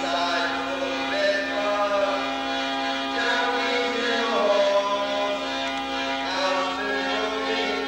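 A man singing a slow, bending melody in a chant-like style over a steady drone that holds one low note throughout.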